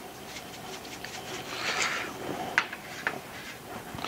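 Seasoning shaken from a shaker can, a brief soft hiss about one and a half seconds in, then two light knocks as the can is set down on the wooden cutting board.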